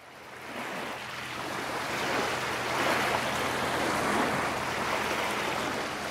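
Sea waves washing and breaking close by: a dense, steady rushing wash that fades in from silence at the start and swells a little through the middle.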